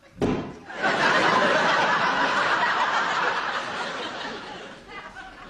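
A short thump, then a studio audience laughing loudly from about a second in, the laughter dying down near the end.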